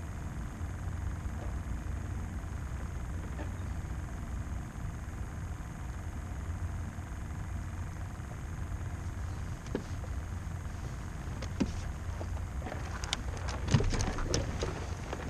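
A steady low rumble, then a cluster of light clicks and knocks in the last few seconds as a person shifts about in a kayak and handles gear.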